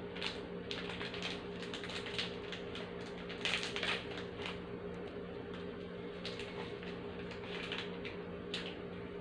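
Crisp cream-filled Dewberry sandwich biscuit being crunched and chewed: irregular crackly crunches, heaviest about three and a half seconds in. A steady low hum runs underneath.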